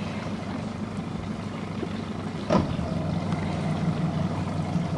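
Boat motor running steadily at an even pitch, with one brief sharp knock about halfway through.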